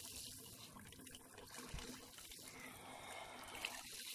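Faint, steady splashing of water from an outdoor shower falling onto bare feet and a wet slab.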